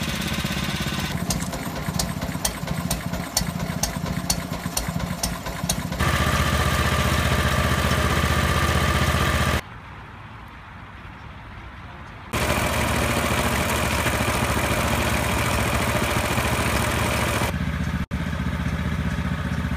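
Small petrol engines of miniature ridable locomotives idling and running, in a series of short spliced clips that change suddenly. A regular light ticking runs over the first few seconds, and a stretch near the middle is much quieter.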